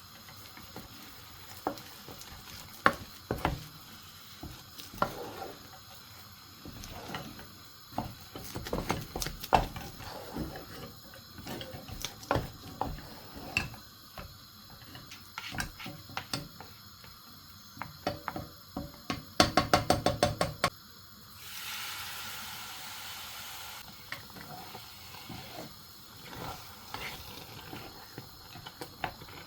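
Kitchen utensils knocking and clinking against pots and bowls while food is handled and stirred. About two-thirds of the way in comes a quick run of about eight ringing knocks, followed by a hiss lasting a couple of seconds.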